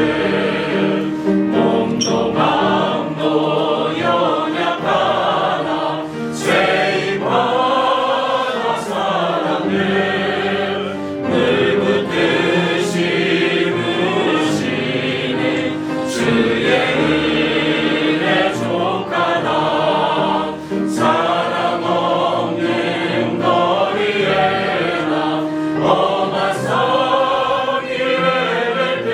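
A small choir of men and women singing a hymn together, in sustained phrases with short breaks between lines.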